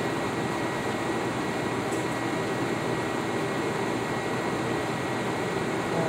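Steady fan hum, with a thin high tone held over it.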